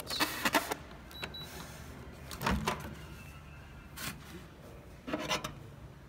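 Clicks and clunks of the Dometic 24-volt microwave oven being handled, with a single short high beep about a second in.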